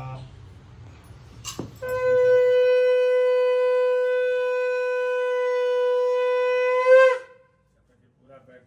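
Conch shell (shankh) blown in one long, steady note lasting about five seconds, swelling and wavering as it breaks off, as the puja begins. A sharp click comes just before the note.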